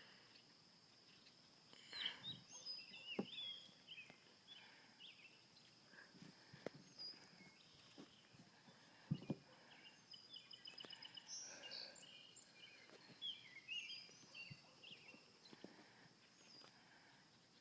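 Faint outdoor ambience: small birds chirping on and off over a steady high insect drone, with a few soft knocks and one sharper knock about nine seconds in.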